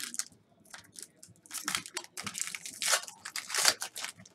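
Foil trading-card pack wrappers crinkling and crackling as hands handle packs and cards, in a string of irregular rustles that starts about a second and a half in.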